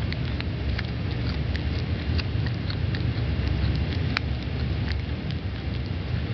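Tuxedo cat chewing a live lizard, its teeth crunching through the lizard's bones in irregular sharp crunches and clicks, the loudest about four seconds in, over a steady low rumble.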